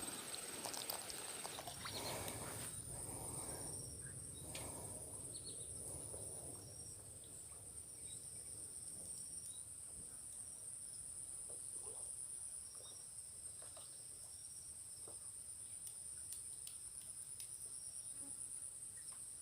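Faint, steady, high-pitched insect chorus, a continuous shrill buzz, with a few soft ticks.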